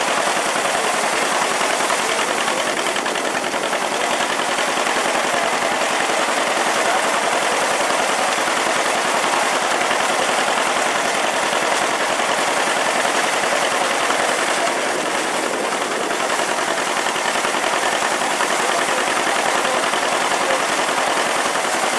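1924 Wood Brothers grain thresher running and threshing grain bundles as they are fed in: a loud, steady, rapid clatter that does not let up.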